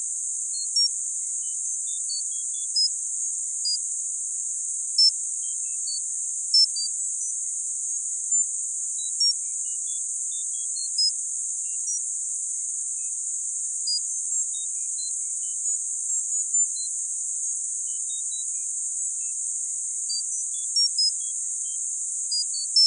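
Tinnitus sound-therapy track: a steady, high-pitched hiss of filtered noise, with short high tone blips at scattered pitches popping up at irregular times, about two a second. It is meant to be played at the loudness of one's own tinnitus to relieve it.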